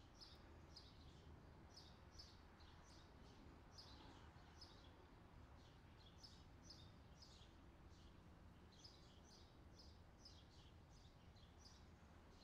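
Near silence with faint birdsong: short high chirps in quick runs over a low steady hiss.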